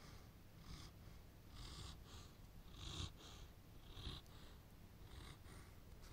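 Landseer dog snoring in its sleep: faint breaths about once a second, often coming as short double puffs.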